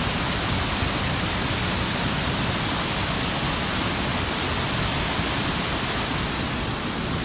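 Steady, even rushing noise with an uneven low rumble underneath.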